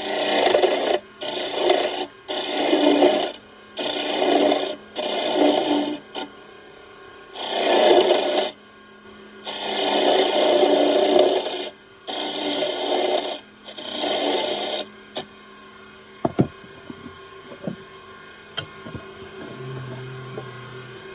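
A turning tool cutting into spinning wood on a wood lathe in repeated passes of a second or two, about nine cuts with short pauses between. The cutting stops about fifteen seconds in, and a few light knocks follow.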